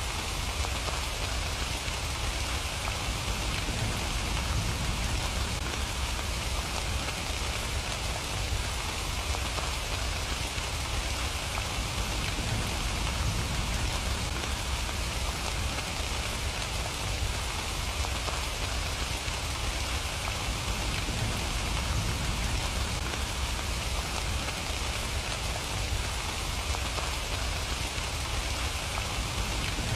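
Steady rain falling, an even, continuous patter with a low rumble beneath it and no break or change.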